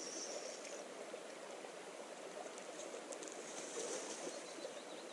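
River water running steadily, an even rush with no sharp events.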